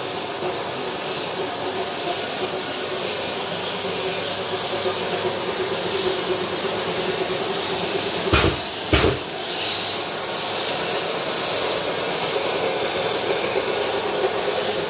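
Kirjes sanding system at work: a sanding pad running with vacuum extraction drawing dust through it, a steady hissing whir with a low hum under it. Two short knocks about eight and nine seconds in.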